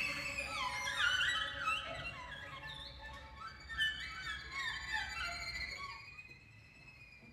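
String quartet playing a sparse passage of short bowed notes that slide quickly up and down, high in range, over a held note. The figures thin out and fade until a single faint high note lingers and dies away near the end.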